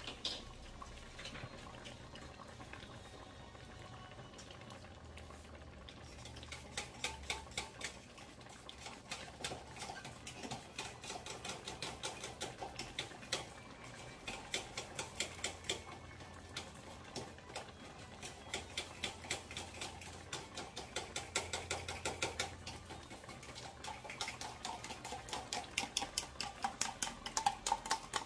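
Thick chicken-and-potato stew sauce simmering in a wok, its bubbles popping in rapid, irregular clicks several times a second, which start about six seconds in.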